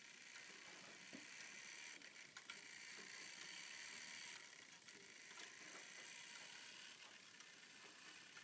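Near silence with a few faint, irregular clicks from the German grandfather clock movement; no hammer strikes ring out.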